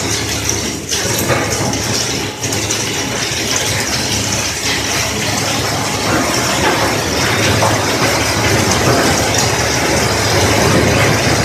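Heavy-duty pipe shredder running and grinding black plastic pipes fed into its hopper: a steady low hum under dense, irregular grinding noise that grows slightly louder toward the end.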